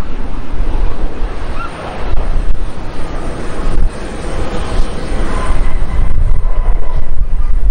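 Jet engines of a Boeing 737-800 rumbling as it touches down and rolls out on the runway, with wind buffeting the microphone.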